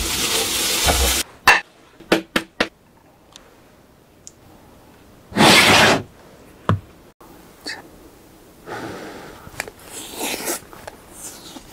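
Fried rice stirred and scraped around a frying pan with a spatula, a loud noisy rush for about the first second. Then scattered clicks and taps, a brief loud burst of noise about halfway through, and near the end the sound of the rice being chewed.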